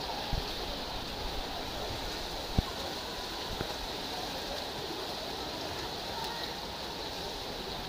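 Steady rushing, splashing water noise from swimmers churning through an outdoor pool, with one sharp knock about two and a half seconds in.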